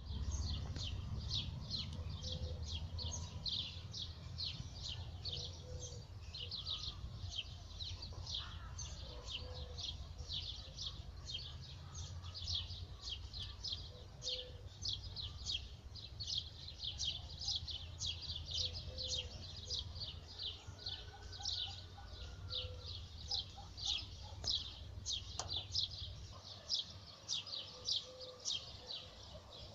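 Small songbirds chirping busily, several short high chirps a second without a break, over a low rumble that stops near the end. A fainter, lower call repeats every few seconds.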